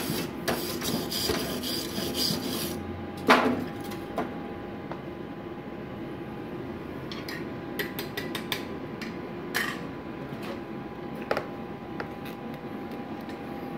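Stick-welding arc of a 4 mm LB-52U electrode on a Multipro EG 300A-SC inverter welder set to about 150 A, crackling for the first two or three seconds and then stopping. A single loud knock comes just after, and scattered sharp clicks follow later over a steady hum.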